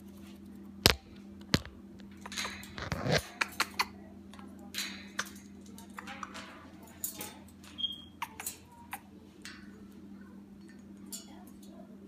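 Congo African grey parrot climbing about its metal cage, its beak and claws clicking and clinking on the bars in scattered knocks, the loudest about a second in. A brief high squeak comes about two-thirds of the way through, over a faint steady low hum.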